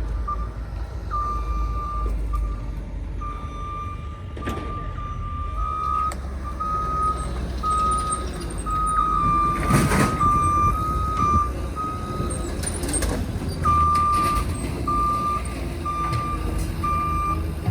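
Truck reversing alarm beeping about once a second over a low engine rumble. In the middle stretch a second backup alarm at a slightly different pitch beeps alongside it, and a loud clunk comes about ten seconds in.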